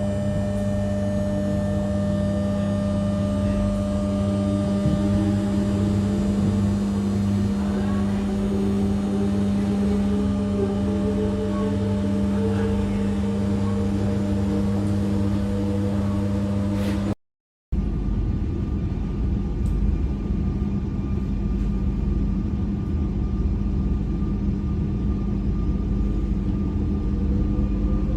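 Electric suburban RER train running, heard on board: a steady electrical hum with traction-motor whines rising slowly in pitch as it picks up speed. About 17 s in the sound cuts out and switches to another stretch of train running noise, a deeper rumble, with a rising whine starting near the end.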